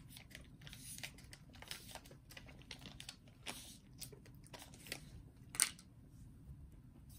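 Faint crinkling of a yogurt pot's foil lid and small wet mouth noises as yogurt is licked off it, with a louder short crackle about five and a half seconds in.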